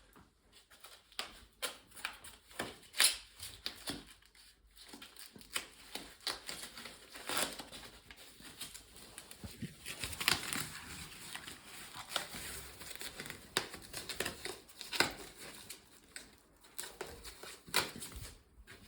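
Packing material being crumpled and torn off, irregular crinkling and crackling with scattered sharp clicks.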